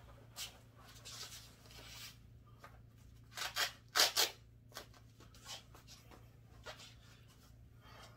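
A handful of short, hissy rustles from a boxer moving in his gloves, the loudest pair about four seconds in, over a steady low hum. No punches land on the heavy bag.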